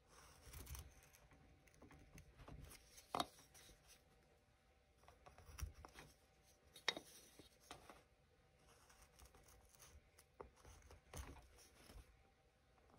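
Faint, intermittent scraping of a deep gouge cutting basswood by hand, with a few short sharp clicks as the tool passes through the wood.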